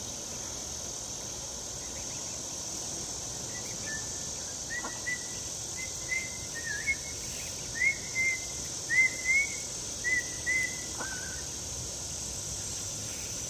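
Steady high trilling of crickets, with a run of about a dozen short, high chirps, several in pairs, from about four to eleven seconds in.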